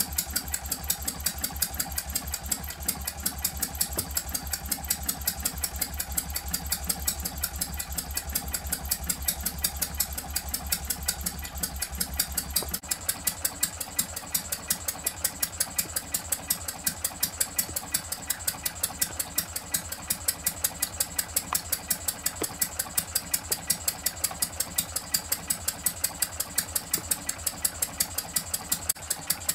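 Twin-cylinder model hot-bulb (semi-diesel) engine running steadily on kerosene, with a quick, even rhythm of sharp ticks from its firing and valve gear.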